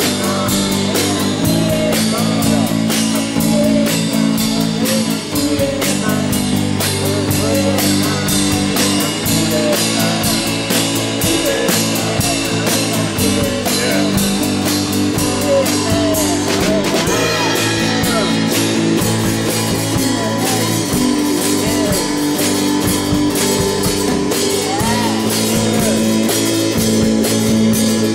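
A rock band playing live: a man singing over electric guitar chords and a drum kit with cymbals, the drums keeping a steady driving beat.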